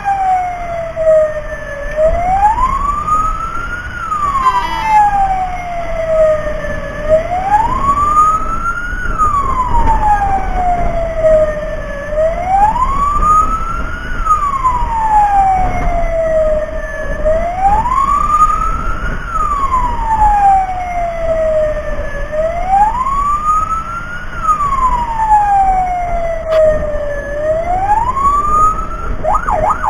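Fire-rescue vehicle siren wailing, each cycle a quick rise and a slow fall, about every five seconds, over a low rumble. Near the end it switches to a fast yelp.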